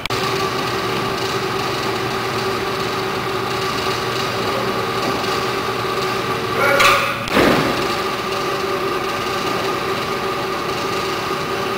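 Overhead crane hoists running with a steady electric whine while lifting and rolling over a yacht hull. About seven seconds in, a louder rising whine swells for about a second and fades.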